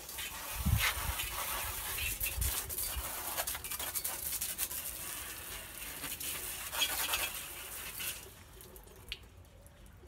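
Water spraying from a garden hose nozzle onto a patio chair, a steady hiss and patter that stops about eight seconds in. A few low thuds come in the first few seconds.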